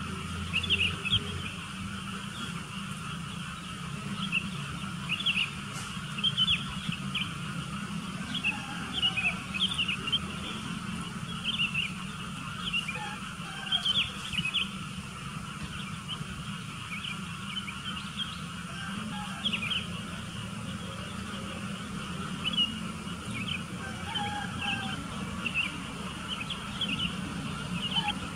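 Sooty-headed bulbuls calling: short, bright chirps repeated every second or two, over a steady low background hum.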